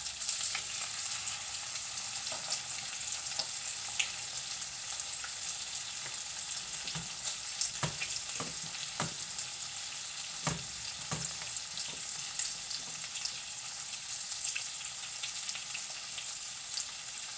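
Corned beef patties frying in a frying pan on a stovetop: a steady high sizzle with a few short pops and crackles partway through, as the meat crisps.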